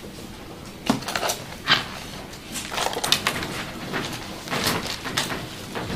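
Chalk knocking and scratching on a blackboard in short strokes: two taps in the first two seconds, then two bursts of scratchy writing.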